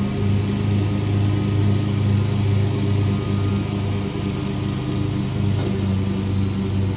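Engine of a commercial Bobcat zero-turn mower running steadily, a constant low hum with a slight pulsing in level.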